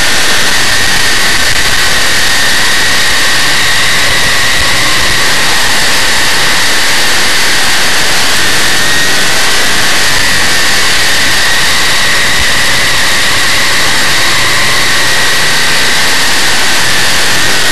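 Big-block Chevrolet V8 of a dirt modified race car running at racing speed, heard from an onboard camera: loud and steady, with no breaks.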